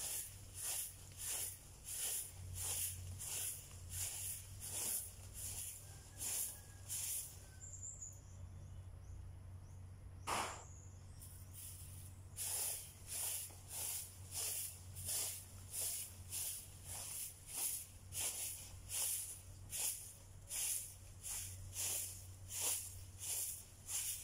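Broom sweeping over dirt ground in steady, rhythmic swishing strokes, nearly two a second, with a pause of a few seconds about a third of the way in broken by a single stroke.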